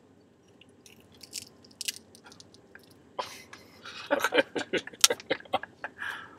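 Beef jerky being bitten, torn and chewed close to the microphone. Scattered small clicks come first, then from about three seconds in a dense run of sharp clicks and snaps, loudest around five seconds in.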